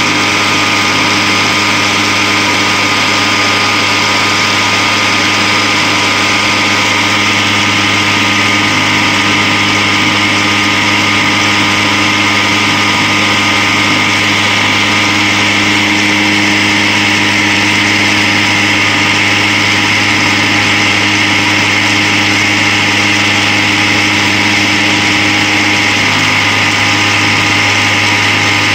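Homemade tin-can oil centrifuge spinning in a bucket at about 6500 rpm, running steadily at speed with a constant hum and a high whine.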